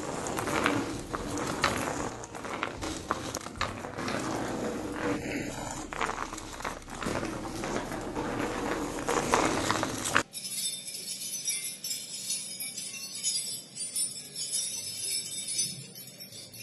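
Dense rustling, crackling noise with many small clicks, then about ten seconds in it cuts off suddenly into a high, thin jingling like small bells.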